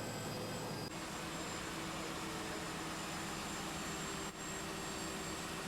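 Steady jet aircraft noise: a dense hiss with a few faint steady whining tones, changing abruptly about a second in.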